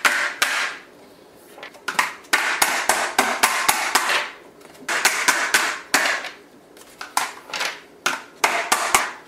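Clear plastic chocolate mold knocked against the countertop again and again, sharp clattering knocks in quick bunches with short pauses between, to tap frozen chocolates out of their cavities.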